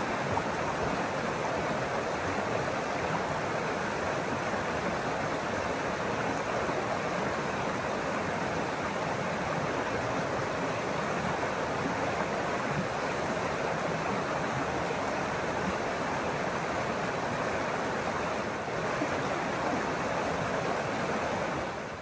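Small rocky woodland creek running over stones: a steady rush of flowing water.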